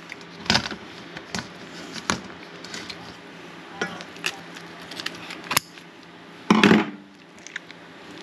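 Kitchen shears snipping through the shell of a frozen lobster tail: a series of separate sharp clicks and cracks, then a louder crunch about six and a half seconds in as the shell is broken apart by hand.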